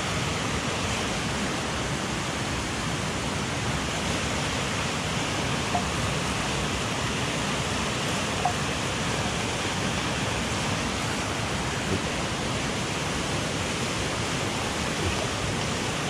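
Steady rushing of a mountain stream, with a few small pops scattered through it.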